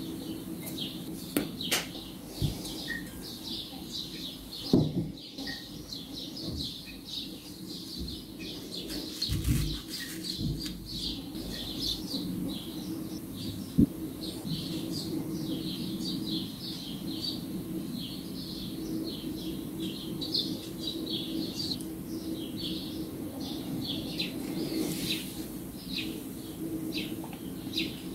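Birds chirping continually, with a steady low sound underneath and a few sharp knocks, the loudest about five seconds in and another near the middle.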